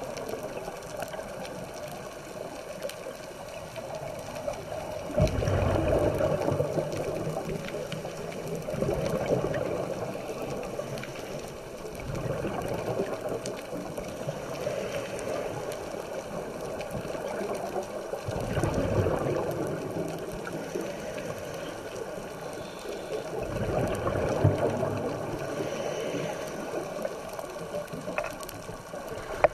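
Scuba regulator breathing heard underwater: every few seconds a swell of rumbling exhaled bubbles, with a steady hiss between breaths.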